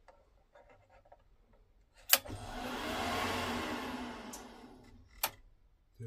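A Worcester Bosch gas boiler switched on with its fan and gas valve disconnected: a sharp click, then a whirring rush that swells and dies away over about three seconds, and another click near the end. The boiler is blowing its glass fuse, a fault the engineer traces to its pump.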